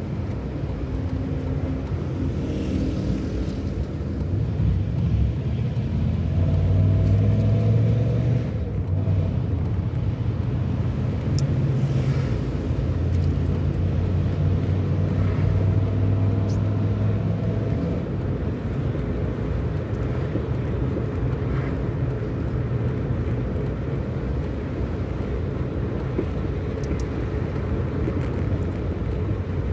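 Car engine and road rumble heard from inside a moving car, the engine note swelling twice as it pulls, with a few faint small clicks.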